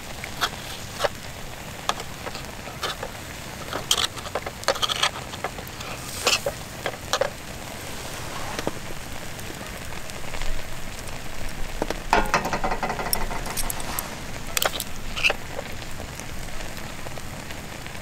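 Wood campfire crackling, with scattered sharp pops over a steady hiss and a quick run of clicks about twelve seconds in.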